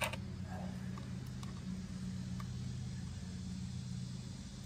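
A sharp click and a few light ticks as hands handle the sprocket cover and parts of a DeWalt cordless pole saw, over a steady low mechanical hum.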